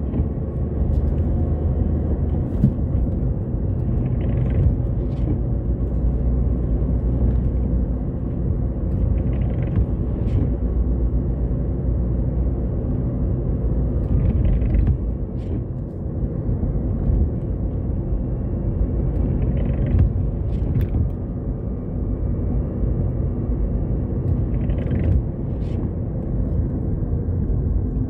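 Steady engine and tyre noise inside a car's cabin while driving along a road, with a faint swish of the windscreen wipers about every five seconds.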